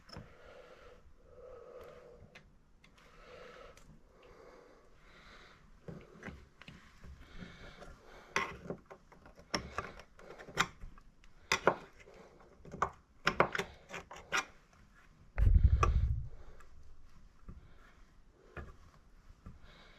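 Metal pick scraping and picking at the stuck old seat cup inside a Valley tub valve body, with a run of sharp clicks and scrapes. A single heavy low thump comes about three quarters of the way through.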